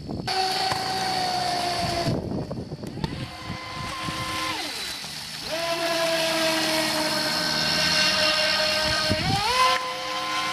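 Fei Lun FT011 RC racing boat's brushless electric motor whining as the boat runs on the water. The pitch holds fairly steady, sinks low about halfway as the throttle comes off, climbs back, and briefly drops and rises again near the end.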